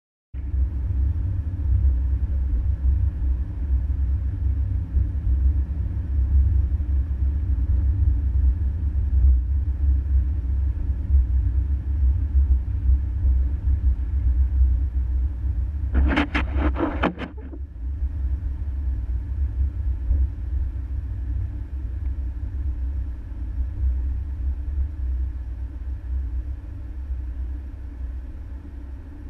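Steady low rumble of a car's engine and road noise while driving. A brief, louder, harsher sound cuts in for about a second and a half around sixteen seconds in.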